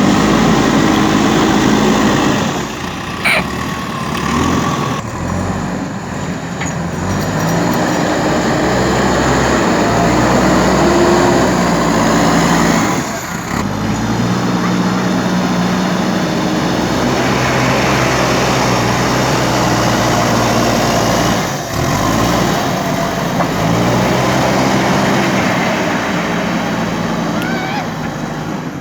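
Backhoe loader's diesel engine running loudly under working load, its pitch shifting up and down several times, with a few brief knocks.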